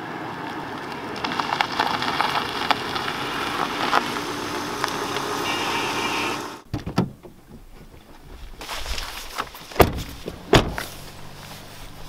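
A Volvo estate car driving up and pulling over, its engine and tyre noise rising, then cutting off abruptly about two-thirds of the way through. After that come quieter rustling and a few sharp knocks, the loudest two about a second apart near the end.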